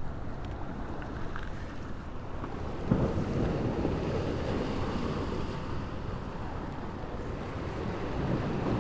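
Wind buffeting the microphone, with the sea washing against the breakwater rocks; a stronger gust comes about three seconds in.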